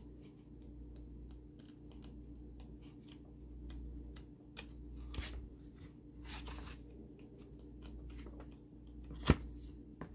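Paper pages of a hardcover book being turned and flipped, with soft rustles and small ticks. There is one sharp tap about nine seconds in.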